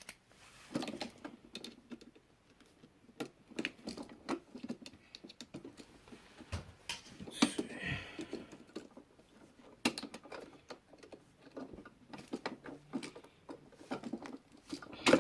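Irregular small clicks, taps and scrapes of hands working a wall outlet and its wiring, with a brief rustling scrape about eight seconds in.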